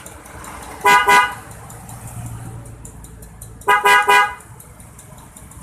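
Denso waterproof electric horn on a Suzuki RC80 motorcycle sounding two quick beeps about a second in, then three quick beeps near the end, over the motorcycle's engine idling.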